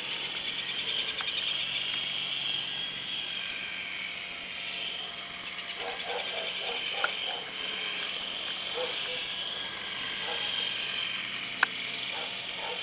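Small electric RC toy helicopter flying, its motor and rotors giving a thin high whine that swells and fades as it moves about.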